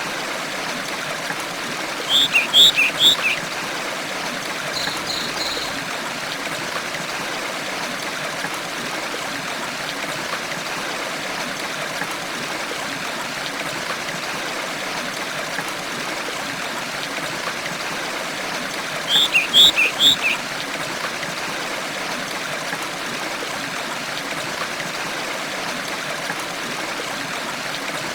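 A stream running steadily over stones, with a songbird giving a quick series of high chirps twice, once about two seconds in and again near the twenty-second mark.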